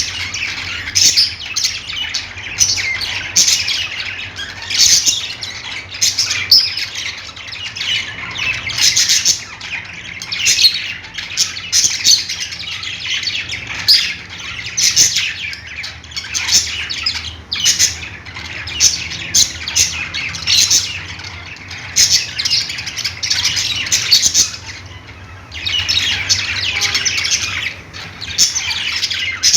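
A flock of pet budgerigars chirping and chattering without pause: dense high warbling calls with frequent sharp squawks, dipping briefly near the end.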